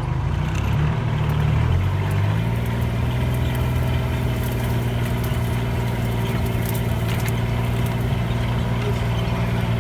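A vehicle engine running, its pitch shifting for the first couple of seconds, then holding a steady hum.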